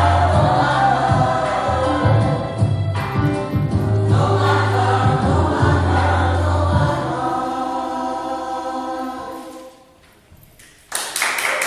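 A girls' choir sings held notes over low sustained tones, then the final chord fades out about nine seconds in. After a short hush, clapping breaks out just before the end.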